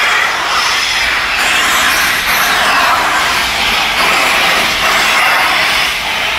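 Steam locomotive Flying Scotsman, an LNER A3 Pacific, moving off with a loud, steady hiss of steam blowing from its open cylinder drain cocks.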